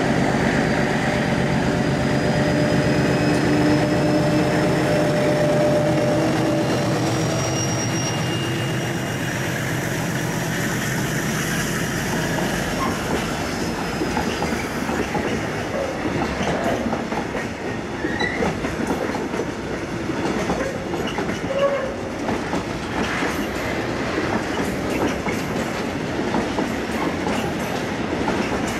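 Diesel locomotive A 459 running as it approaches and passes, with a thin high whine over the engine. Then a long train of tank wagons rolls past with a steady clickety-clack of wheels over the rail joints.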